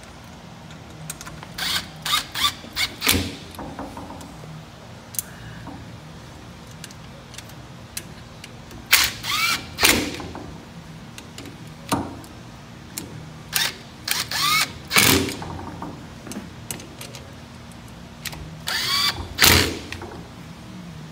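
Cordless drill running in short bursts as it drives the screws that hold a spring unit onto a pneumatic vane actuator, in several separate groups of quick trigger pulls with pauses between them.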